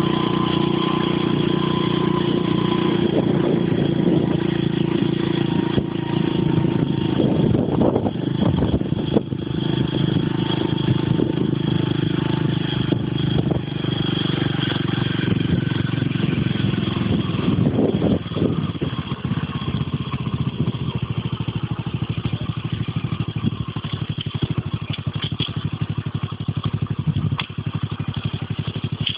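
Engine of the vehicle carrying the camera, running steadily as it drives along a road, with road and wind noise and a couple of brief surges in the middle.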